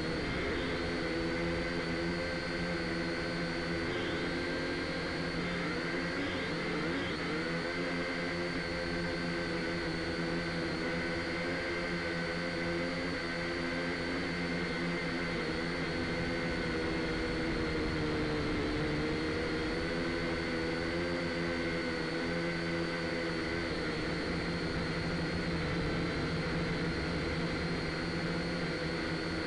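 A drone's motors and propellers whirring steadily in flight, picked up close by its own on-board camera. The whine wavers in pitch a few times as the motors change speed.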